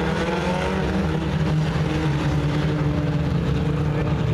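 Several four-cylinder pure stock race cars running together around a dirt oval, their engine notes overlapping and gliding up and down in pitch as they go through the turns.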